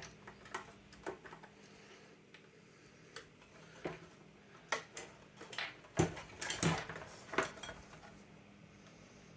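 Metal screwdriver clicking and scraping against plastic while prying at a stuck connector: scattered small clicks, with a denser run of louder clicks about six seconds in.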